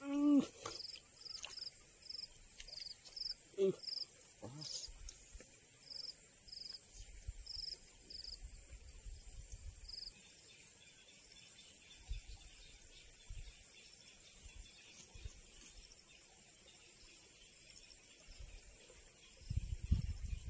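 Insects trilling steadily in a high, fast-pulsing drone, with a string of short, higher chirps over the first half. A few brief swishing sounds come in the first few seconds, and a low rumble starts at the very end.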